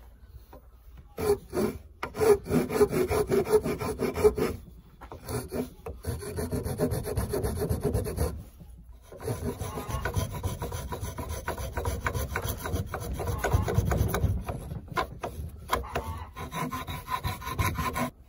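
A hand file rasping the edge of a wooden saw-handle blank held in a vise, shaping it with fast back-and-forth scraping strokes. The strokes come in three runs, with short breaks about four and a half and eight and a half seconds in.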